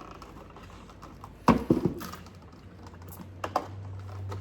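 Stiff plastic packaging being pried and handled: scattered sharp clicks and knocks, the loudest a thud about a second and a half in, with a low hum coming in near the end.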